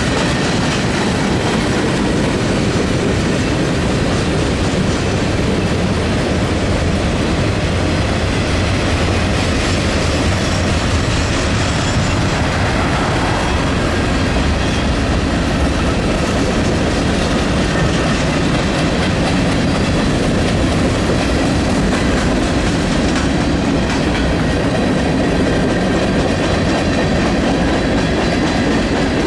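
A train's cars rolling past at steady speed, a loud continuous rumble of wheels on rail with rhythmic clickety-clack.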